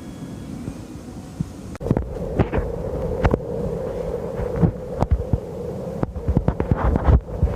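Robinson helicopter's rotors throbbing overhead: a steady hum with repeated low thumps, starting about two seconds in.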